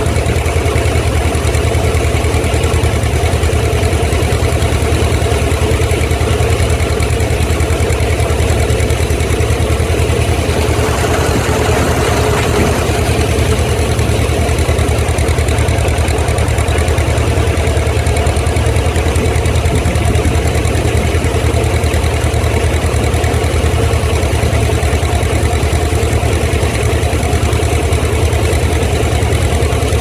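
Vintage John Deere two-cylinder tractor and the red pull-type combine it draws, engine and threshing machinery running steadily while cutting wheat, the noise swelling briefly about eleven seconds in.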